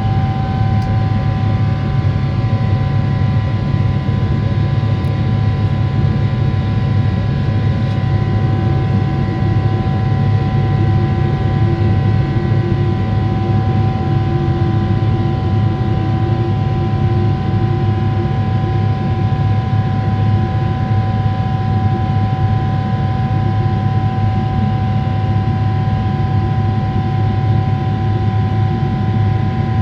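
Steady drone of a Boeing 777-300ER's GE90-115B turbofan engines: a constant low rumble with several steady whining fan tones above it.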